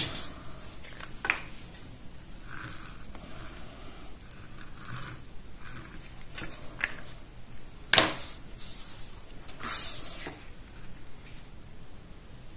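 Embossed cardstock being handled and glued onto a folded card base: scattered paper rustles and light taps, with one sharp click about eight seconds in, the loudest sound.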